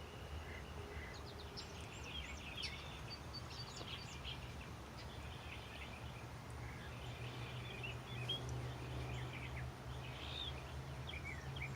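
Faint birdsong: scattered short chirps and quick calls from several birds, over a steady low hum.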